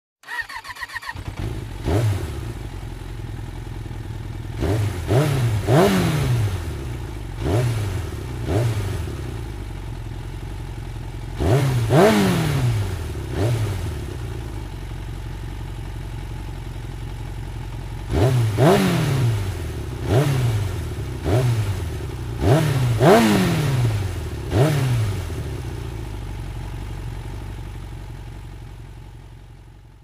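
A motorcycle engine is started: about a second of cranking, then it catches and settles into an idle. Throughout, repeated quick throttle blips rev it up sharply and let it fall back, often several in a row, and the idle fades out near the end.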